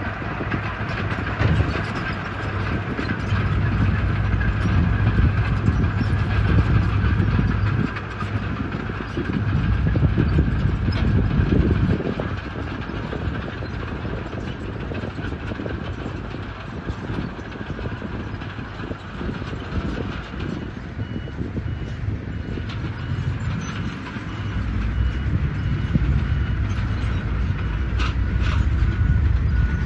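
Diesel engine of a Hyundai excavator working under load, its rumble rising and falling as the machine digs and swings. In the last third a backup alarm beeps steadily over it.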